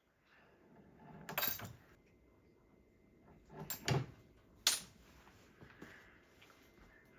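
A few brief clinks and knocks of handling noise: one about a second in, another near four seconds, and a sharp click just after.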